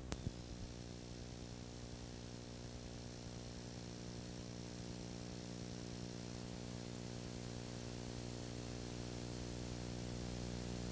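Electrical mains hum with tape hiss on an old videotape sound track, after a few sharp clicks at a tape glitch at the start. The hum is steady and slowly grows louder.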